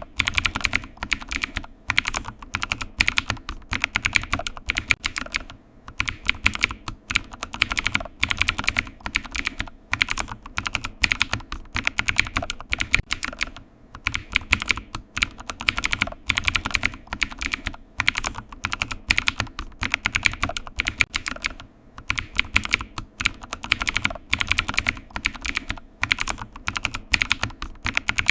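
Typing on a computer keyboard: quick runs of key clicks broken by brief pauses every few seconds.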